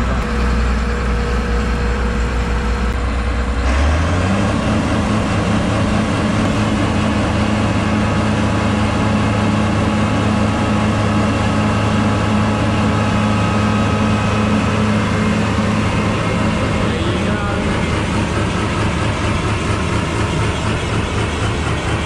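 Combine harvester's diesel engine running low, then revving up sharply about four seconds in and holding steady at the higher speed.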